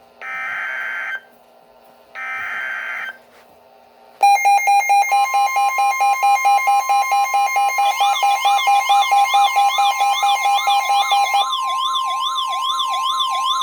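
Weather radio sounding an Emergency Alert System alert: two short bursts of screechy digital header data, then about four seconds in a loud alarm starts. A rapid pulsing beep is joined by the steady weather-radio warning tone, and from about eight seconds in by a warbling, siren-like sweep.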